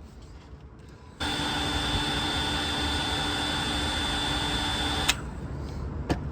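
Heat gun blowing hot air onto the phone's back glass to soften its adhesive: it switches on about a second in, runs as a steady rush of air with a high whine, and cuts off suddenly with a click. A second short click follows.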